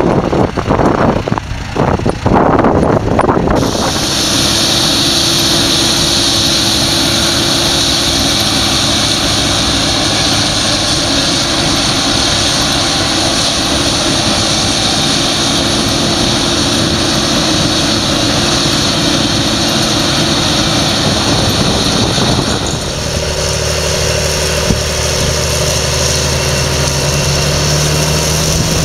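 Three farm machines in turn. First a Claas tractor with a trailer crossing stubble, an irregular rumble. After about four seconds a Claas Lexion 540 combine harvesting, a steady engine drone under a loud high hiss. About 23 seconds in, a large John Deere tractor's diesel working under load pulling a disc cultivator, its pitch rising slightly near the end.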